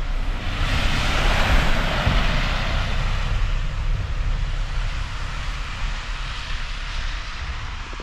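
A vehicle passing: a rushing hiss that swells about a second in and then slowly fades, over a low rumble.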